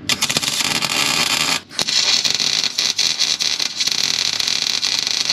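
MIG welder arc crackling steadily as a bead is laid, in two runs with a brief break about a second and a half in.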